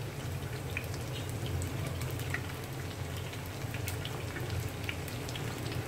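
Golden-fried tofu cubes frying in shallow oil in a nonstick pan, the oil crackling with scattered sharp pops as the pieces are turned with wooden utensils, over a steady low hum.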